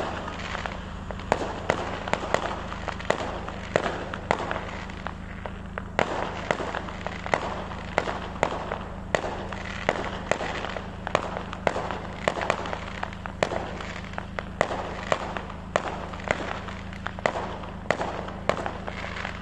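Aerial fireworks going off: an irregular stream of sharp bangs and crackles, a few each second.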